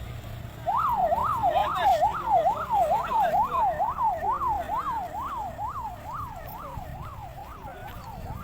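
Ambulance siren sounding a fast up-and-down wail, about two sweeps a second. It starts suddenly about a second in, is loudest early on, and then slowly fades as the vehicle moves away.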